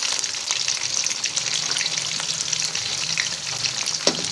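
Marinated chicken pieces deep-frying in oil in a karahi over lowered heat: a steady sizzle flecked with small crackles. A short knock sounds about four seconds in.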